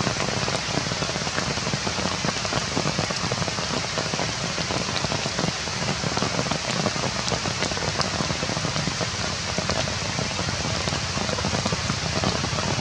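Steady rain falling on leaves.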